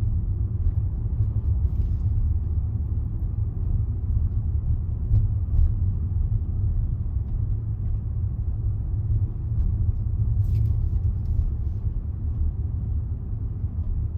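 Steady low rumble of road and engine noise inside a Range Rover's cabin, driving slowly at about 20 mph.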